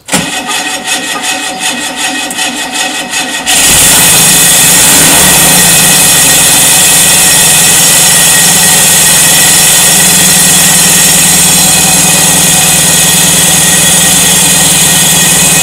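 Freshly rebuilt VW 1600cc single-port air-cooled flat-four in a Type 2 bus: the starter cranks it with an even rhythm for about three and a half seconds, then it catches and runs steadily.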